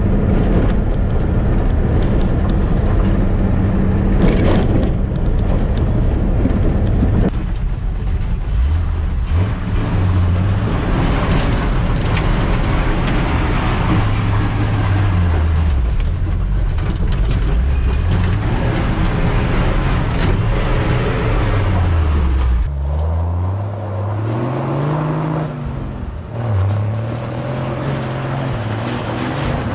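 A 1959 GMC pickup truck's engine revving hard as the truck is driven on dirt and spun in donuts. Its pitch rises and falls over and over. At first it is heard from inside the cab; from about 23 seconds in it is heard from out in the field.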